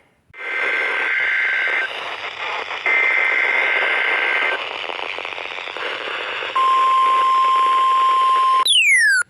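NOAA Weather Radio broadcast heard through heavy static: two bursts of the SAME digital header data tones, then about two seconds of the steady 1050 Hz weather-radio warning alarm tone, as sent for the weekly test. A short falling sweep follows just before the end.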